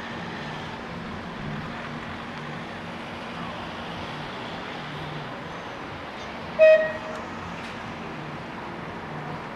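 A single short horn toot about two-thirds of the way through, over a steady background of street and traffic noise.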